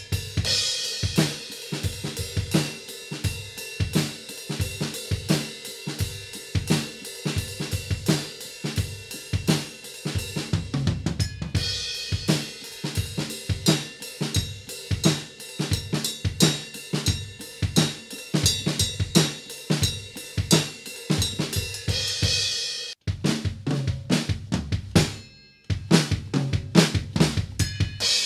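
Full drum kit played at a brisk pace, with kick drum, snare and ringing cymbals. The playing breaks off sharply about 23 seconds in, drops out briefly again a couple of seconds later, then carries on.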